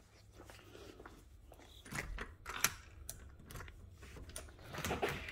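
Footsteps and handling noise: a few irregular knocks and clicks, the sharpest about two and a half seconds in, with a cluster of clunks near the end.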